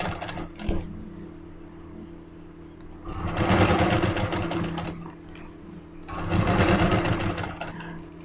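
Electric-motor Kailash Sharp sewing machine stitching a gold border onto blouse fabric in two runs of about two seconds each. The motor hums steadily between the runs.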